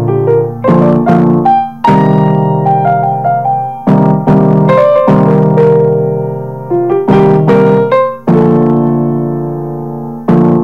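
Background piano music: slow chords and single notes struck one after another, each ringing and fading before the next.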